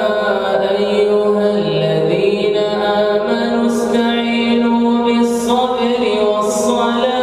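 A man's voice reciting the Quran in a slow, melodic chant (tajwid). He draws out long held notes that step up and down in pitch, broken by a few short hissing consonants.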